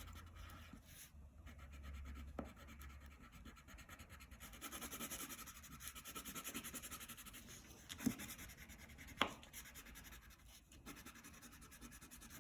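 Crayon rubbed rapidly back and forth on paper in colouring-in strokes, a faint, even scratching, with two sharper ticks a little past the middle.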